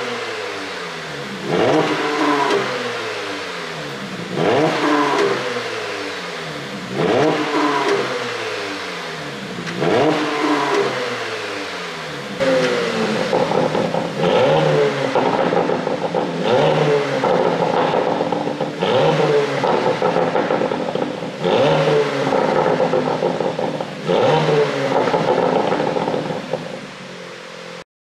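A 2023 Porsche Panamera 4 E-Hybrid's twin-turbo 2.9-litre V6 being revved through its exhaust, each rise in pitch followed by crackling pops as the revs fall: the pops and crackles of an ECU pop-sound tune. First come four single blips about three seconds apart. Then, from about halfway, the engine is held higher and surges about every two seconds with pops between, until the sound cuts off just before the end.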